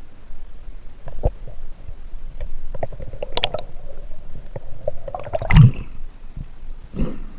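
Water gurgling and sloshing around a camera held under the river's surface, with scattered knocks and bumps. A loud splashing thump comes about five and a half seconds in as the camera comes up out of the water.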